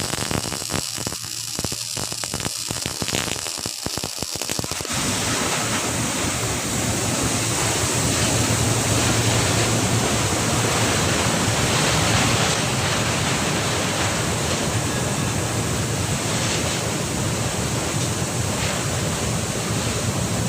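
Electric welding arc crackling and hissing, with a low hum underneath, as an old welding machine is tried out. The crackle is broken and uneven for the first few seconds, then settles into a steady hiss about five seconds in.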